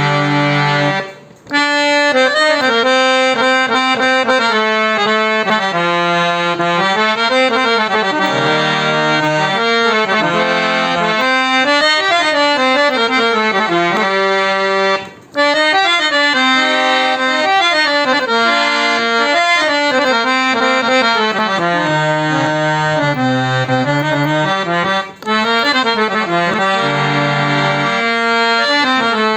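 Antique bass male-reed harmonium played, a melody with held chords over sustained reed tones, pausing briefly three times.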